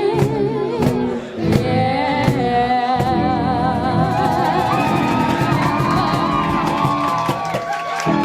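Live rock band with a singer: drum strikes through the first three seconds, then the band holds a long chord while the voice holds wavering notes.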